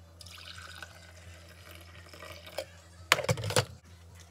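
Coffee pouring from a glass carafe into a mug, a steady splashing trickle, followed about three seconds in by a short burst of loud knocks and clatter.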